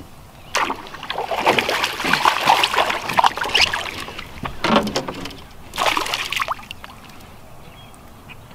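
Water splashing as a hooked bass thrashes at the surface beside the boat and is landed: a long stretch of splashing over the first few seconds, two shorter bursts around five and six seconds in, then quieter.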